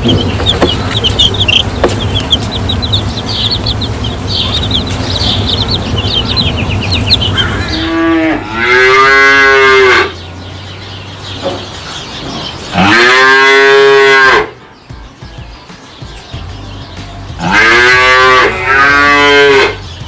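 Cattle mooing: three long, loud moos about 8, 13 and 17 seconds in, the last broken into two parts. Before them comes a steady background noise with quick high-pitched chirping.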